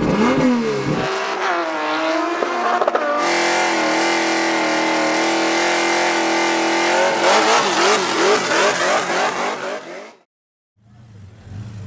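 Race car engine revving hard: the pitch swoops up and down, is held high for several seconds, then blips up and down before cutting off abruptly about ten seconds in, followed by a quieter low engine rumble.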